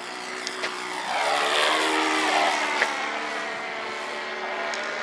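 Radio-controlled trainer plane making a low pass. Its motor and propeller grow louder, then drop in pitch as it flies by.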